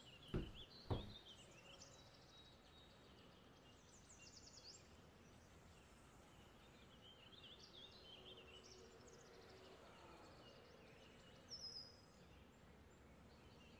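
Near silence: quiet room tone with faint bird chirps now and then.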